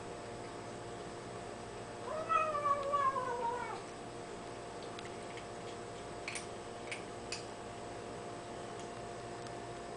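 Kitten making one drawn-out mewing call while eating, its pitch sliding slightly down over about a second and a half. A few small clicks follow.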